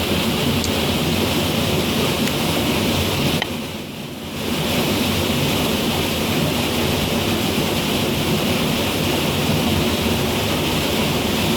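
Steady rushing water, a dense even noise, briefly quieter for about a second a little after three seconds in.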